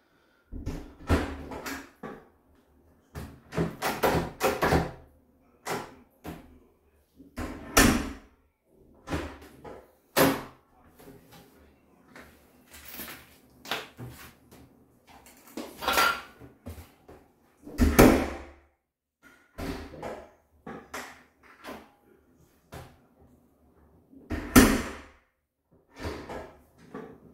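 Bathroom door's newly fitted lever handle being turned and the door opened and shut over and over, with a long string of latch clicks and knocks and a few louder thuds as the door closes against the frame. This is a test of the new handle and latch.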